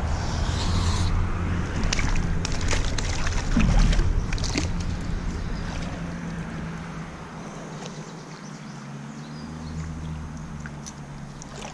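River water splashing and sloshing as a rope fish stringer is handled and lowered into the current, with a cluster of sharp clicks and knocks from handling it about two to five seconds in.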